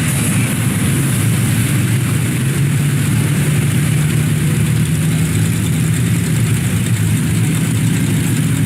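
Engine of a lifted off-road 4x4 on tall tractor-tread tires running steadily at low revs as it crawls through deep mud, a constant low hum.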